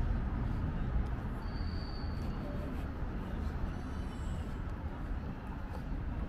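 Outdoor urban background noise: a steady low rumble. A short, high steady tone sounds about one and a half seconds in.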